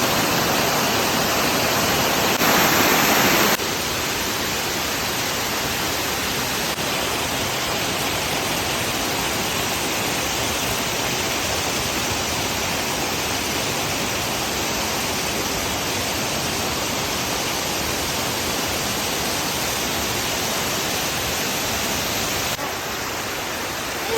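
Waterfall: a steady rush of falling water. It steps suddenly louder for about a second, about two and a half seconds in, and steps quieter near the end.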